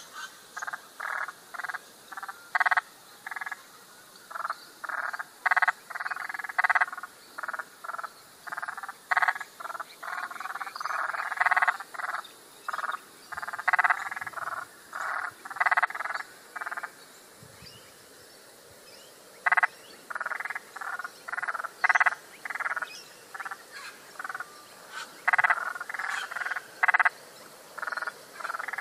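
A chorus of frogs calling: many short croaking calls, a few per second, overlapping and irregular, with a lull of about two seconds past the middle. Frogs calling like this are typical of the breeding chorus that starts up after a good fall of rain.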